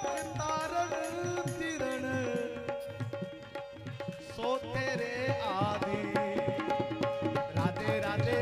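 Live devotional kirtan music: a harmonium with a held drone and a gliding, wavering sung melody over a steady hand-drum rhythm.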